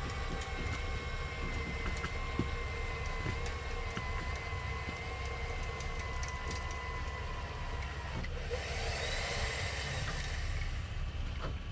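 Electric vehicle winch whining steadily under load as it pulls a stuck pickup free. Its pitch sags slightly before it stops about eight seconds in, over the low rumble of running engines.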